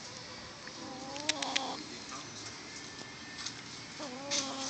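Hens calling at close range: a drawn-out call about a second in, rising slightly in pitch, and another starting near the end. Three sharp taps fall during the first call.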